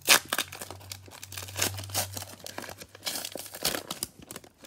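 A 2020 Prizm baseball card pack's plastic wrapper being torn open and crinkled in the hands. There is a sharp rip just after the start, then a few seconds of busy crinkling.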